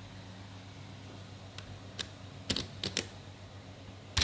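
Sharp little clicks and taps of hard plastic parts of a disassembled hand mixer being handled, single ones at first, then a quick run of four or five near the end, over a steady low hum.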